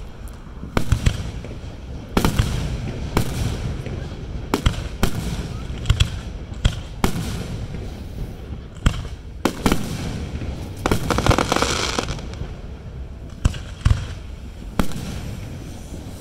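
Aerial firework shells bursting one after another: sharp bangs at uneven intervals, with crackling between them and a dense stretch of crackle about two-thirds of the way in.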